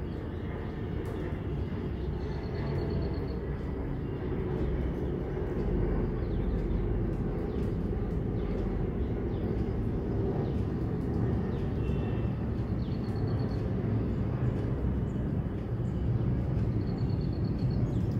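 Steady low outdoor rumble. A short, rapid, high-pitched trill sounds three times over it.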